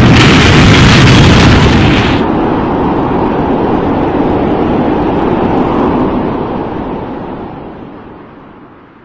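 Explosion sound effect: a loud burst of rushing noise that loses its hiss after about two seconds, then rumbles on and fades away.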